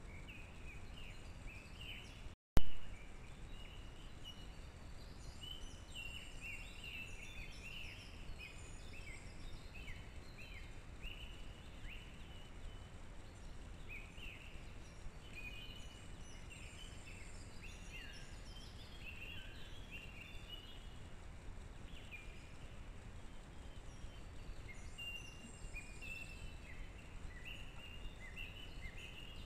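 Small songbirds chirping and singing on and off over a steady low background rumble. About two and a half seconds in, the sound drops out for a moment and a single sharp click follows.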